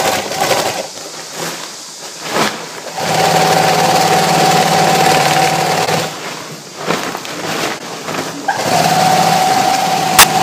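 Heavy-duty rotating-hook lock stitch sewing machine sewing a jumbo bag in two runs of a few seconds with a steady, even hum. It stops for a few seconds between runs, with knocks from the fabric being handled. A sharp click comes near the end.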